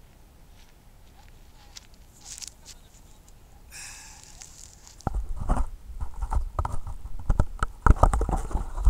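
Footsteps and scuffing on grass right beside the microphone: after a fairly quiet start with a couple of faint swishes, irregular heavy thumps and knocks begin about five seconds in.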